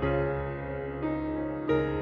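Background music: slow, soft keyboard notes, with new notes struck about a second in and again near the end.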